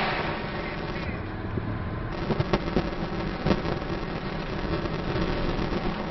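Car driving, heard from inside the cabin: steady engine and road noise. A rush of noise fades during the first second, and a few sharp knocks or rattles come later.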